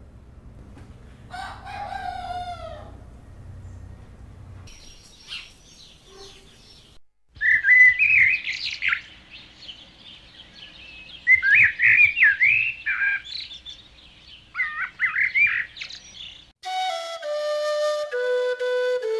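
A rooster crows once early on. Small birds then sing in bursts of quick, bright chirps for several seconds. Near the end a flute melody begins.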